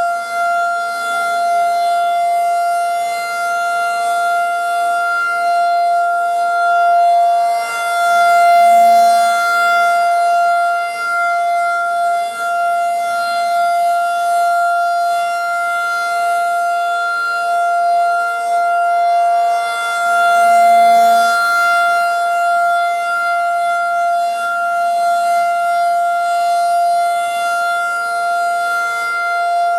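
Federal Signal 2001-DC rotating siren sounding a steady alert tone for a three-minute alert test. The tone swells and fades as the siren rotates, peaking about every twelve seconds. Fainter sirens rise and fall in pitch behind it.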